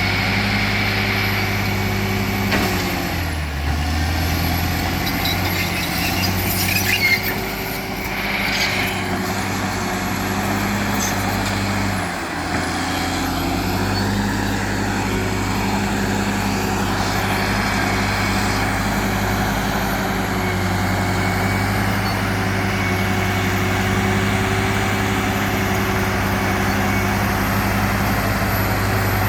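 Heavy diesel earthmoving machine running steadily at working revs, its engine pitch dipping briefly under load twice, a few seconds in and again about twelve seconds in. A burst of knocking and rattling comes about six to nine seconds in.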